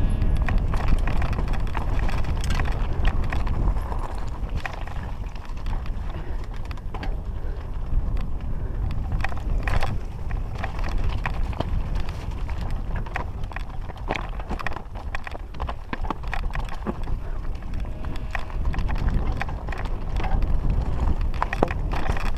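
Mountain bike descending a rocky trail: tyres rolling and bumping over loose stones, and the bike rattling and clattering with a dense run of irregular knocks over a constant low rumble.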